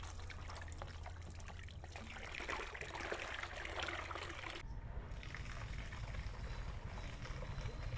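Water running and trickling, louder for a couple of seconds, then cut off abruptly about halfway through before carrying on.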